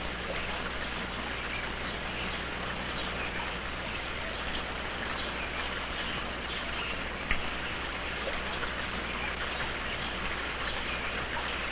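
Steady hiss with a low hum from an old 16mm film soundtrack, with a single sharp click about seven seconds in.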